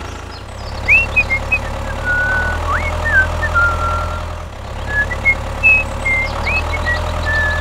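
A steady low engine hum, like a tractor idling, that dips briefly about halfway through. Short bird chirps and whistles sound over it.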